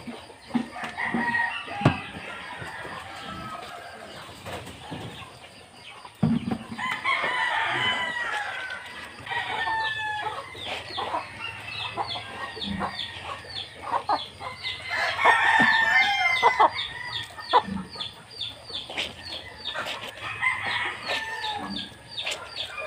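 Chickens crowing and clucking, with several calls rising and falling, the loudest about two-thirds of the way in. Under them, wet cloth is scrubbed and squelched by hand in soapy water in a plastic basin.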